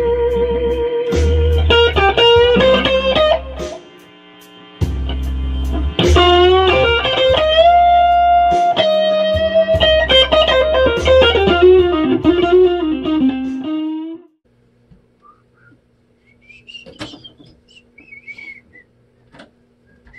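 Electric guitar playing a blues lead with held notes, vibrato and string bends over low bass notes. It stops about fourteen seconds in, leaving only a few faint knocks.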